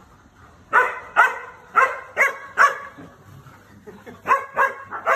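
Standard poodle barking in short, loud barks: five in about two seconds, then a pause, then three more near the end.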